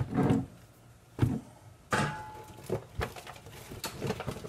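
Groceries being handled and set down: a series of dull thumps and knocks, the loudest at the start, with a brief rustle about two seconds in.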